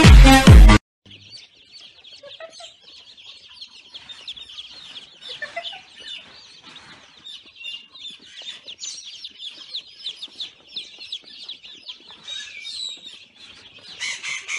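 Loud music for the first second, cutting off abruptly. Then a crowd of baby chicks peeping: many short, high cheeps overlapping without pause, fairly faint.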